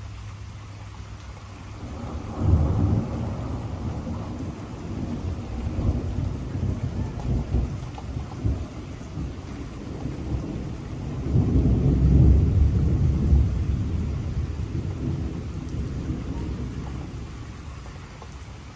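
Rolling thunder rumbling through steady rain. The rumble swells about two seconds in, comes back stronger in the middle, then dies away near the end.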